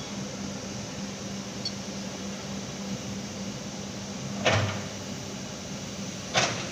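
Steady hum of industrial machinery, broken twice by a short, sharp knock: once about four and a half seconds in and again near the end.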